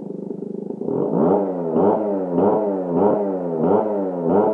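A chainsaw idling, then from about a second in its throttle is blipped six times, about one rev every 0.6 s, each jumping up in pitch and sliding back down.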